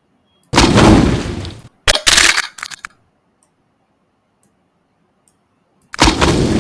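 Sound-effect clips played back in an editor: a sudden loud crash that dies away over about a second, then a quick run of sharp cracks. Near the end comes another sudden crash.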